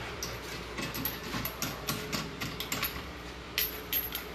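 Workshop noise: irregular light clicks and taps over a low steady hum.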